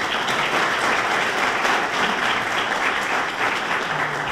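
A large audience applauding steadily: many hands clapping together.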